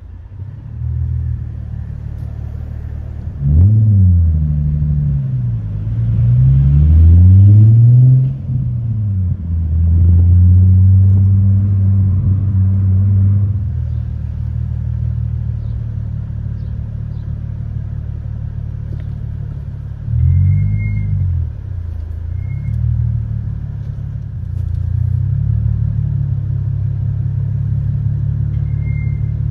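Nissan 350Z's V6 engine heard from inside the open-top cabin, pulling away with the revs rising and falling through a couple of gear changes a few seconds in, then running steadily at low speed. It revs briefly again about twenty seconds in, and a few short high beeps sound around then and near the end.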